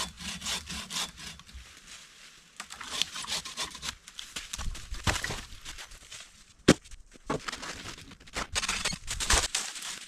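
Wooden sticks being handled, scraped and rubbed against each other in a series of irregular strokes, with one sharp knock of wood about seven seconds in.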